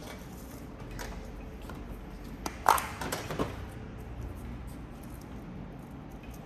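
A few light clicks and knocks as a small plastic tub of coloured sand is picked up and handled. The loudest is a sharp click a little under three seconds in, over a steady low hum.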